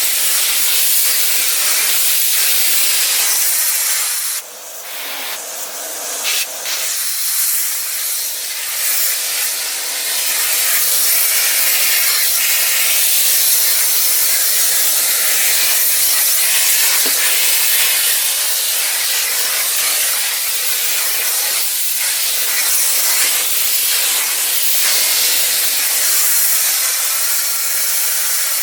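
Electrolux Ergospace canister vacuum cleaner running, its suction a steady high hiss. The sound briefly drops and wavers between about four and seven seconds in.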